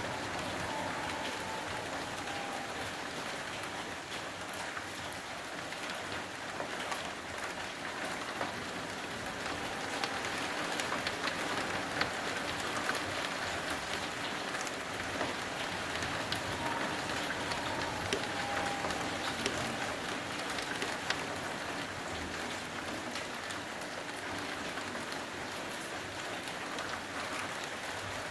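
Steady heavy rain falling on streets and buildings, a constant hiss with scattered sharp drop hits close by.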